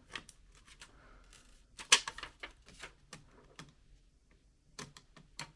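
Scattered small clicks and taps of a screwdriver and hands working on a laptop's plastic case and screws, the loudest about two seconds in and a quick cluster near the end.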